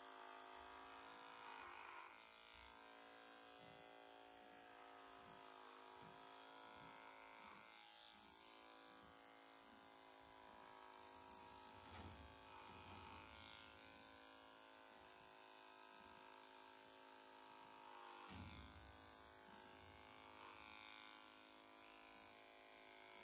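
Small electric horse clipper buzzing faintly and steadily as it clips the short hair on a horse's face, its tone wavering briefly a few times.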